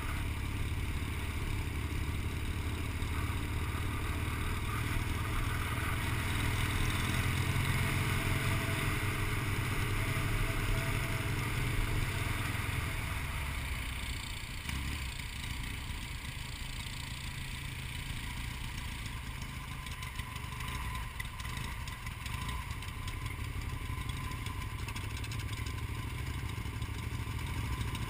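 Royal Enfield motorcycle engine running at road speed, heard from on board with wind and road noise. The engine note drops about halfway through as the bike slows to take a corner and roll up to a roundabout.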